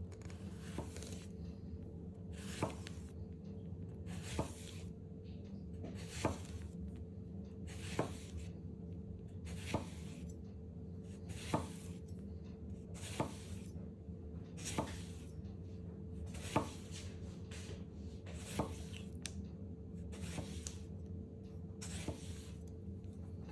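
A 240 mm Japanese gyuto chef's knife slicing a lemon into thin rounds on a wooden cutting board: about thirteen even strokes, roughly one every two seconds, each a short hiss of the blade through the fruit ending in a sharp tap on the board. A steady low hum runs underneath.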